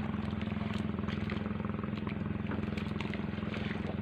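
A small engine running steadily, a low even drone, with a few faint clicks over it.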